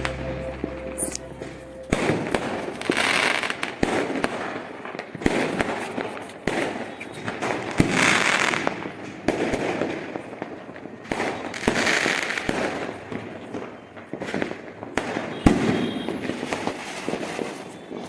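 Diwali fireworks going off: many sharp cracks and bangs, with a rushing hiss that swells and fades every few seconds.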